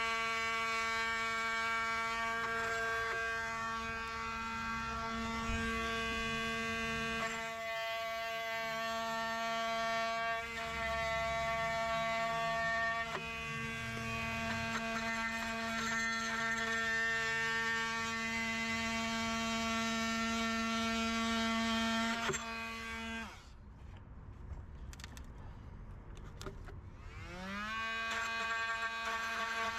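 An electric motor running with a steady buzzing hum. It cuts out abruptly about three-quarters of the way through, then spins back up with a quick rise in pitch about four seconds later and runs steady again.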